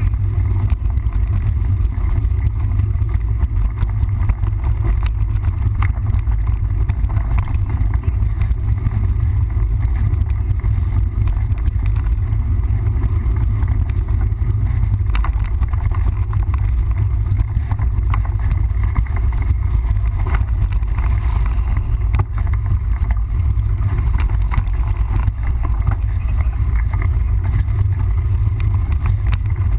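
Steady wind rumble on the camera microphone while riding a mountain bike, with tyre and trail noise and scattered clicks and rattles from the bike.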